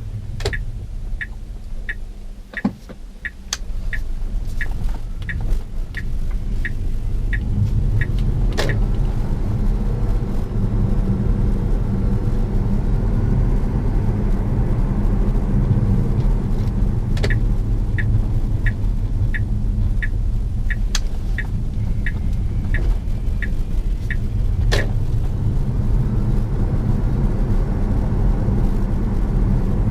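Tesla Model S drive unit under power with a steady low rumble, carrying the milling noise of the known drive-unit fault that has led to drive unit replacements. A regular ticking, about one and a half clicks a second, runs over it twice.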